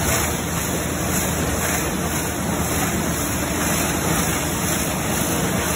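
Steady background noise of factory machinery running, an even, unbroken din with no distinct strokes or rhythm.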